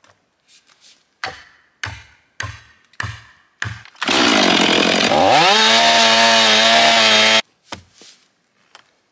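Five sharp blows about half a second apart as an axe drives a wedge into the saw cut of a jarrah log. Then a Stihl MS 500i fuel-injected two-stroke chainsaw runs loud, its pitch sinking for about a second and then holding steady, before stopping abruptly. A couple of weaker knocks follow near the end.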